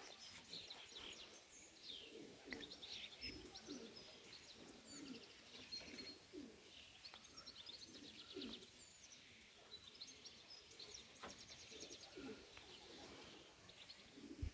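Faint birdsong: small birds chirping and trilling repeatedly, with short low calls that fit pigeons cooing from the loft.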